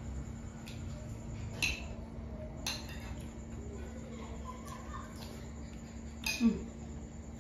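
A metal spoon clinking against a plate a few times while eating, with the loudest clink near the end, over a steady low hum.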